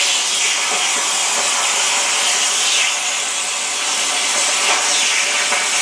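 CIG Weld Easy Cut 35 air plasma cutter torch cutting through 1 mm steel plate: a steady, loud hiss of the plasma arc and its air jet.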